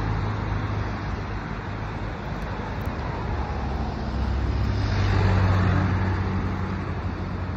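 Road traffic: a steady low engine hum with tyre noise, swelling to its loudest about five and a half seconds in and easing off again, as of a vehicle passing.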